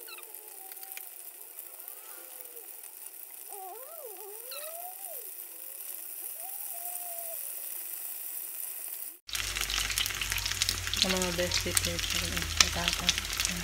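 Battered chicken pieces frying in hot oil in a pan: a steady sizzle with popping crackles. It is quieter at first and becomes much louder and denser after an abrupt cut about nine seconds in.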